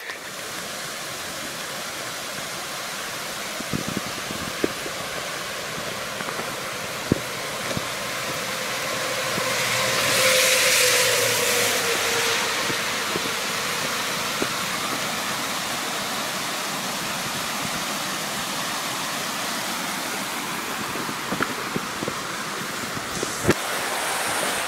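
Highway traffic hissing by, with one vehicle passing close about ten seconds in, its tone falling as it goes by.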